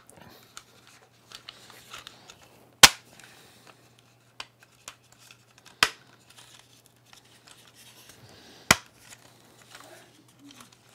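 Hard 3D-printed PLA/PHA plastic gun parts clicking and knocking together as they are pressed into place by hand: three sharp clicks about three seconds apart, the first the loudest, with light plastic ticks and scraping between.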